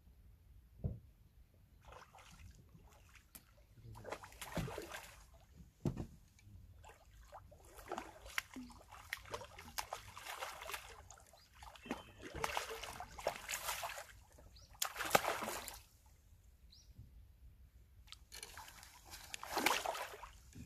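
A big hooked Israeli carp thrashing at the water's surface while fighting a long fishing pole, sending up irregular bursts of splashing every few seconds, with a few sharp ticks in between.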